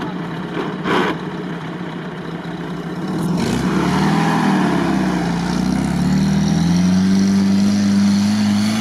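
UAZ off-roader's engine pulling hard up a steep dirt slope. It runs steadily at first, with two short knocks near the start. From about three seconds in it revs harder, its pitch rising and falling, then climbs and holds high near the end.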